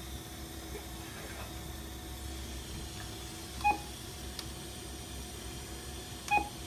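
Olympus ESG-100 electrosurgical generator giving two short beeps, about two and a half seconds apart, as its mode button is pressed to step through the coagulation modes toward soft coag. A steady low equipment hum runs underneath.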